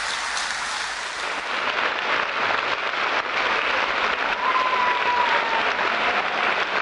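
Concert audience applauding steadily after a song ends. About four seconds in, one long high note from someone in the crowd slides slightly down over the clapping.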